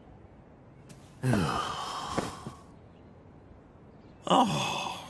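A man sighing twice, each a breathy voiced sigh falling in pitch: the first about a second in, lasting over a second, the second near the end. The sighs are dejected.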